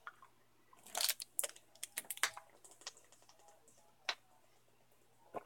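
Light clicks and taps of plastic supplement bottles being handled: a quick run of small clicks about a second in, then two single taps near the end.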